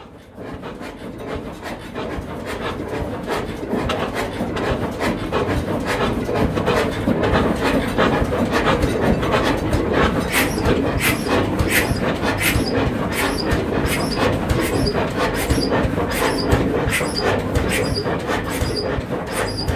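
Vintage flywheel stationary engine running with a slow, regular exhaust beat, about one and a half strokes a second. It grows louder over the first few seconds, and the beat is clearest in the second half.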